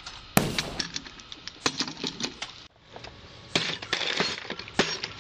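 A sharp clatter about half a second in, then, after a short break, metal hand tools clinking and clattering as hands rummage through them in a plastic toolbox.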